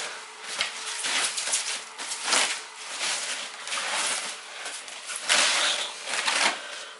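Irregular rustling and scraping of packing material, in several noisy bursts, as a new guitar is handled and lifted out of its case.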